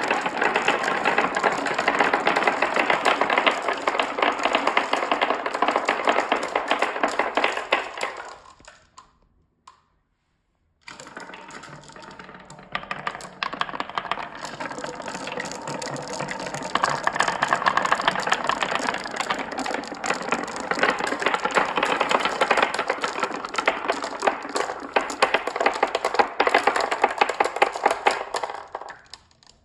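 Many marbles rolling and clattering down a marble run track in a dense run of clicks. The clatter dies away about nine seconds in, stops for a couple of seconds, then starts again, builds, and dies away near the end.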